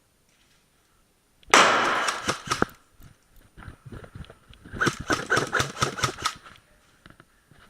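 Airsoft guns firing in rapid bursts: a loud burst about a second and a half in, then a longer string of quick shots a few seconds later.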